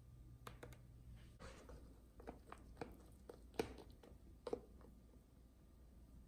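Faint clinks and scrapes of a metal spoon in a measuring cup as raisins are stirred into oat-and-banana pancake batter: a few soft, scattered taps, the clearest about three and a half and four and a half seconds in.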